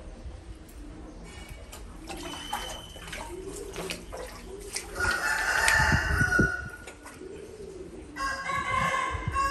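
A rooster crowing twice: one long crow about five seconds in and another starting near the end.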